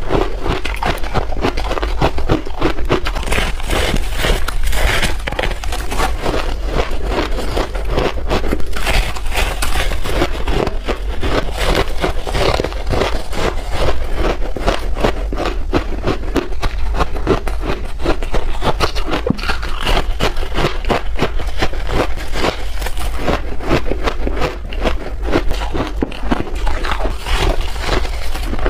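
Close-miked biting and chewing of powdery refrozen ice: a dense, irregular run of crisp crunches and squeaky crackles as the blocks break between the teeth.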